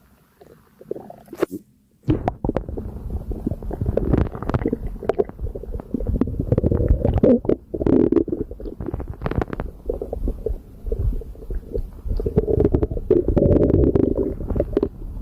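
A human stomach gurgling and rumbling as it digests a light breakfast. It is faint for the first couple of seconds, then turns into a busy run of gurgles and squelches, with two longer rumbles in the middle and near the end.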